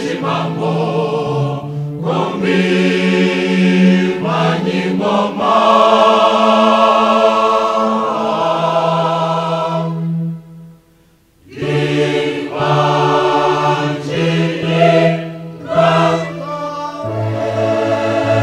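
Large mixed choir singing a Kinyarwanda song in full harmony, in phrases. There is a brief break about ten seconds in before the voices come back. Near the end they hold a steady chord.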